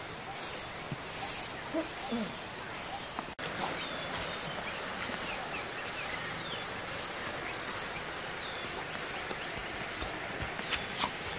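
Insects chirping: a steady high trill with short chirps repeating in pulses, over an even outdoor hiss. The sound drops out for an instant about three seconds in, then carries on.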